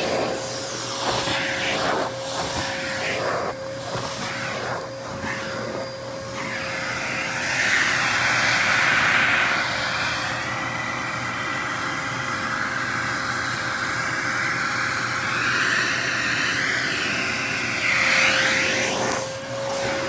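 Dyson DC33 vacuum cleaner running with a steady motor whine, its nozzle pushed back and forth over stair carpet in short strokes that make the suction noise surge. For much of the middle the airflow turns into a steadier rushing sound, before the strokes start again near the end.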